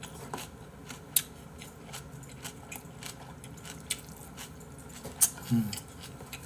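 A person chewing mouthfuls of braised mackerel and rice close to the microphone: wet mouth noises with a few sharp lip smacks. A short low hum near the end.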